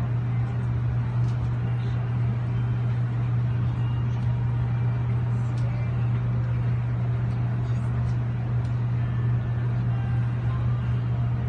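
Steady low machine hum with a faint hiss above it.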